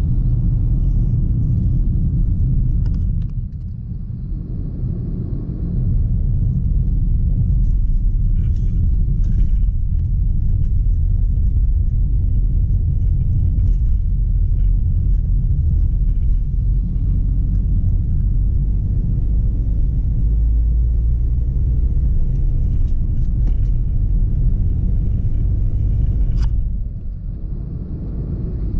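Steady low rumble of road and wind noise from a moving vehicle, with two brief dips in level, about three seconds in and near the end.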